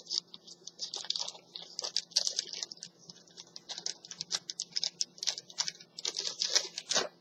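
Small screws being fitted and turned into a laptop hard drive caddy: rapid, irregular high clicking and scratching of metal that stops about seven seconds in.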